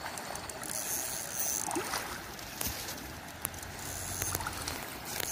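A fish shot with a tethered slingshot arrow thrashing and splashing at the surface of shallow water as it is drawn in on the line.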